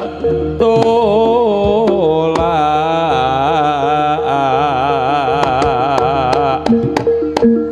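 Live Javanese jaranan ensemble music: a wavering, ornamented lead melody over a steady held note, with drum strokes throughout.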